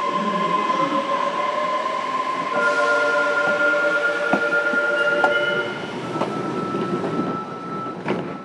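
Fukuoka City Subway 2000 series train heard from inside the car: several steady whining tones from its Hitachi GTO inverter over wheel and track rumble, with the tones changing about two and a half seconds in. A sharp click about eight seconds in, then the running noise falls away sharply.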